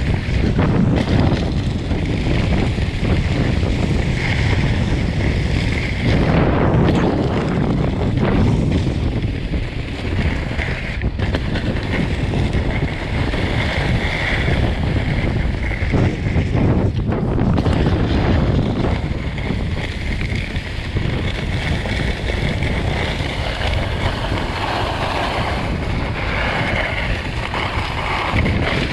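Wind buffeting the microphone and a snow BMX's skis hissing and scraping over groomed snow on a fast downhill run, a loud continuous rush that swells and eases as the bike carves.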